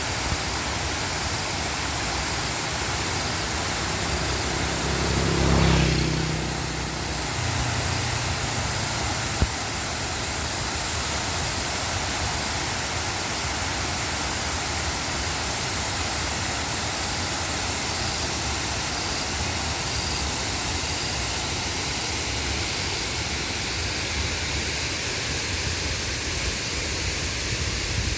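Waterfall: a steady rush of falling water. A brief low rumble swells about five seconds in, and a single sharp click comes near ten seconds.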